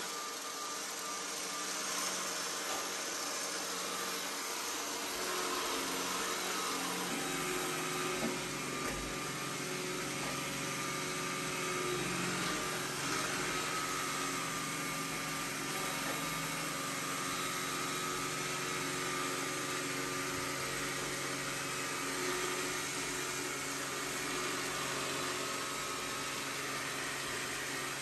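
iRobot Roomba s9+ robot vacuum running: a steady whir of its suction fan and brushes, with a few faint whining tones.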